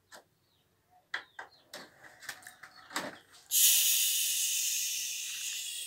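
Plastic CD jewel case clicking and knocking as it is handled, then, about three and a half seconds in, a sudden steady hiss that slowly fades.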